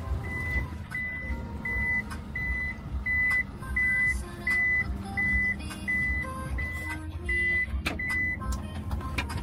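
Minivan warning beeper sounding a steady high beep about one and a half times a second while the sliding door stands open, over the low hum of the idling engine. The beeping stops about eight seconds in.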